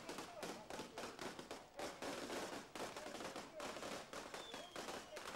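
Firecrackers and fireworks going off in a rapid, continuous crackle of bangs, with voices from the crowd mixed in and a short falling whistle near the end.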